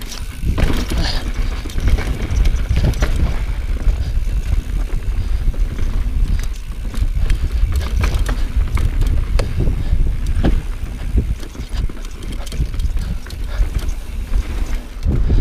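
Transition Sentinel mountain bike riding down a rocky dirt singletrack: a steady heavy low rumble with frequent sharp clicks and rattles as the bike rolls over rock and dirt.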